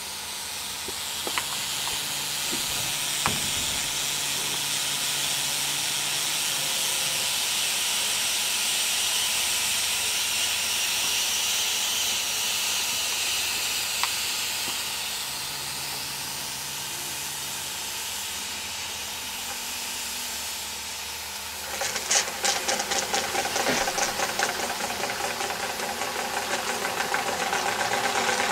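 Wilesco D22 model steam engine: steam hissing steadily from the boiler, with a few faint clicks, then about three-quarters of the way in the engine starts running with a fast, even chuffing beat that grows louder.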